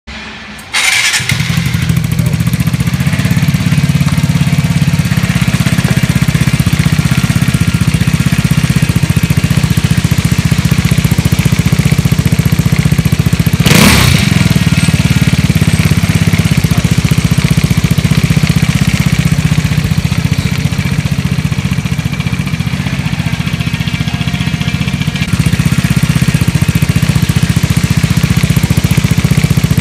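Vespa GTS 300's single-cylinder four-stroke engine, fitted with a Polini aftermarket muffler, starting about a second in and then running steadily through the exhaust. There is a brief sharp click near the middle.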